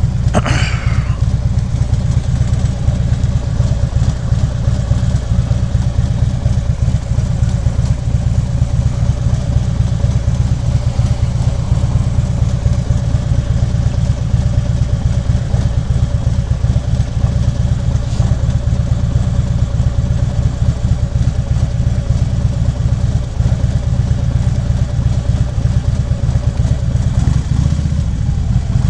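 2014 Harley-Davidson Ultra Classic Limited's V-twin engine idling steadily.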